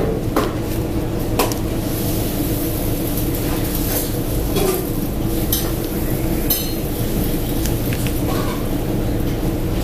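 Busy small eatery's kitchen and dining noise: a steady hum with occasional clinks and knocks of dishes and utensils.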